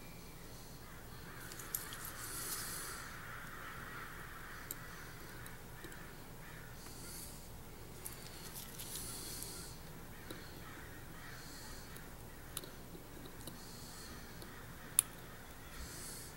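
Quiet watchmaker's bench sounds: scattered small clicks of tools and parts being handled, with soft breaths close to the microphone. One sharper click near the end.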